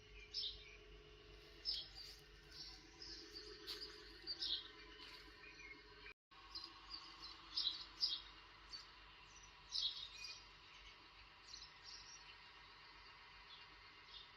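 Small birds chirping: short, high calls every second or so over a faint steady background. The sound cuts out completely for a moment about six seconds in.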